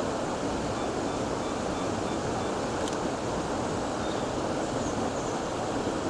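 Steady rush of a rocky stream pouring over a small waterfall. Faint camera self-timer beeps sound about a second in, followed by a shutter click about three seconds in.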